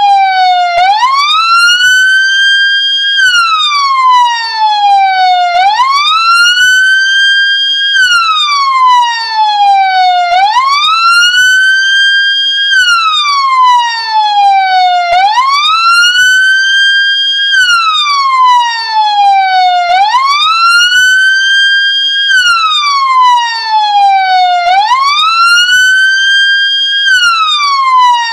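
Loud ambulance siren in a slow wail: a tone rises quickly, holds briefly at its top, then falls slowly. The cycle repeats about every five seconds.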